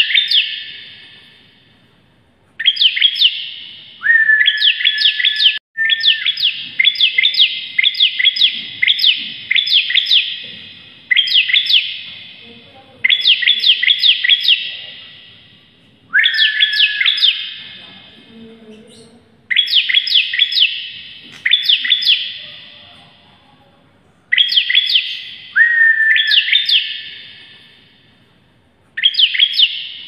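Bar-winged prinia (ciblek) singing loudly in repeated phrases of rapid, sharp high notes, a phrase every two seconds or so. Several phrases open with a short held whistle.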